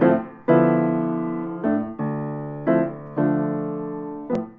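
Intro music: piano chords struck one after another at an unhurried pace, each ringing and fading before the next, with a faint click near the end.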